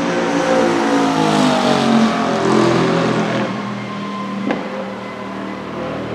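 Bentley Continental GT3 race car's twin-turbo V8 passing by at speed, its engine note sliding down in pitch as it goes past and away, loudest about two seconds in. A single sharp crack comes about four and a half seconds in.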